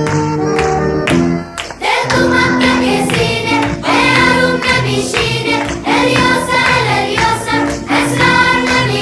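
Background music: an instrumental passage for about the first two seconds, then a song with singing over a steady beat.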